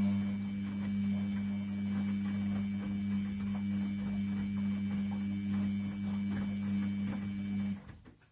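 Washing machine running with a loud, steady hum and faint light rattles, cutting off suddenly near the end.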